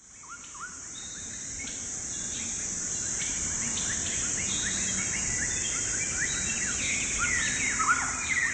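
Birds chirping over a steady high insect drone, fading in over the first two seconds. The chirps are short and many sweep down in pitch; near the end comes a quick trill of rapidly repeated notes.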